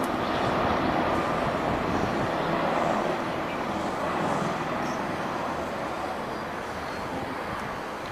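NAS332 Super Puma helicopter flying past, a steady rush of rotor and turbine noise that gradually fades as it moves away.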